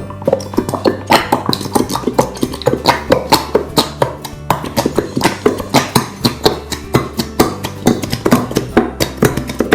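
Background music: quick plucked-string notes, several a second, over a steady low bass line.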